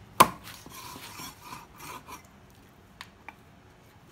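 A cleaver strikes once, sharply, into a wooden chopping block just after the start. About two seconds of scraping and rubbing on the board follow, then two light knocks.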